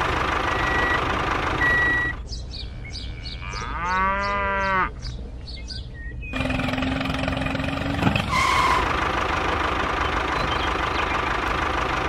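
A steady mechanical running noise, like a small motor, that drops away about two seconds in to a quieter stretch with a light regular ticking. A single cow moo of about a second and a half rises and falls in pitch during that stretch. The steady running noise returns about six seconds in.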